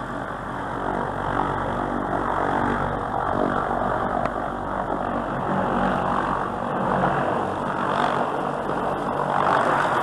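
An engine runs steadily with a continuous drone, growing a little louder toward the end.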